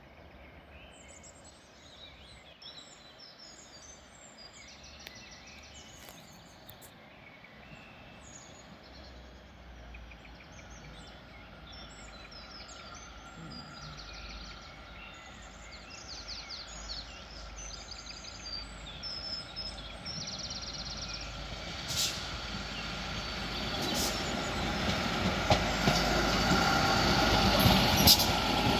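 Northern diesel multiple unit approaching and passing close by, growing steadily louder, with a steady whine and, in the last few seconds, wheels clicking over the rail joints. Birds sing during the first half.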